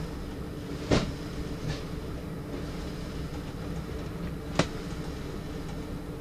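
Class 117 diesel multiple unit's underfloor diesel engines idling with a steady low rumble, heard from the driving cab while the train stands at a platform. Two sharp knocks cut through, the louder about a second in and another over three seconds later.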